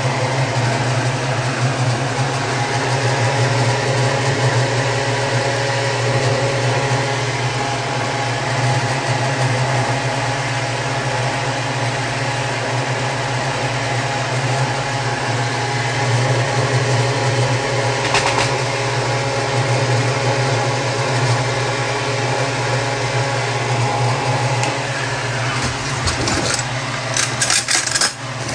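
Steady mechanical hum, like a small motor or fan running, with a strong low drone. A few sharp clicks and clatters come near the end.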